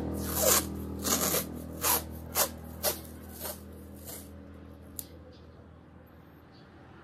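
A run of short, scratchy rubbing strokes, about seven over four seconds and growing fainter, then a single click about five seconds in.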